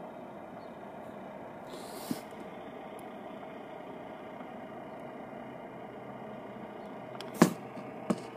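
Steady hum of a car heard from inside the cabin. A short tap comes about two seconds in, and two sharp clicks or knocks come near the end, the first the loudest.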